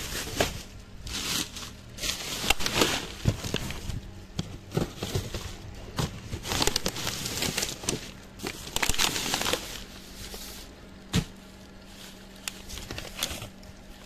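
Plastic bags and bottles crinkling and rustling in irregular bursts as household garbage is rummaged through, with scattered sharp clicks and knocks. A faint steady hum runs underneath.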